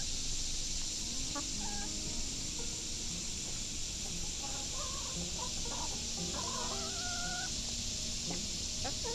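Hens clucking and giving short pitched calls while foraging, busiest from about four and a half to seven and a half seconds in, over a steady high-pitched hiss.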